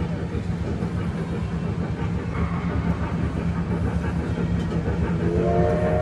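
Wattman electric mall train running with a steady low hum. About five seconds in, its whistle starts: several tones sounding together as one held chord.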